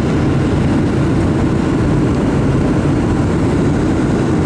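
Steady cabin noise inside a Boeing 737-700 descending on approach: the rumble of its CFM56-7B turbofan engines and rushing airflow, heaviest in the low end and unchanging.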